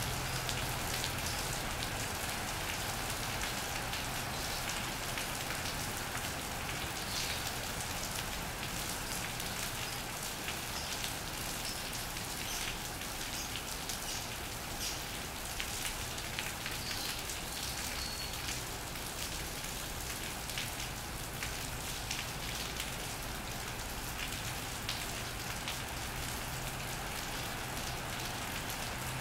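Steady rain falling on an iron roof and wet paving, with many individual drops ticking close by. A faint low hum of distant road traffic sits underneath at the start and again near the end.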